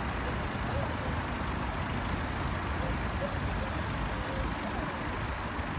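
Steady road-traffic noise with faint snatches of distant voices.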